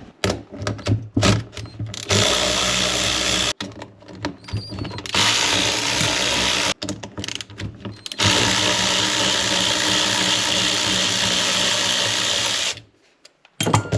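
Power drill running in three long steady bursts, the last about four and a half seconds, after a few short knocks, taking apart the old windshield wiper motor and linkage assembly.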